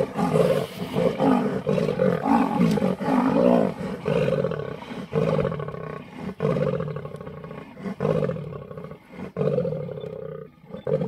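Lioness and leopard growling and snarling at each other in a tree as they fight over the leopard's impala kill: a steady run of harsh, rasping calls one after another, easing off briefly near the end.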